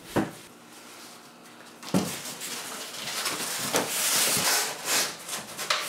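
Corrugated cardboard dish barrel box being handled: a knock about two seconds in, then a few seconds of cardboard scraping and rustling as the box is opened and flipped upside down.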